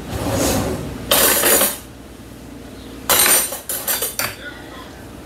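Metal cutlery and kitchen utensils clattering as someone rummages for a spoon: three noisy bursts of clatter, then a few lighter clinks.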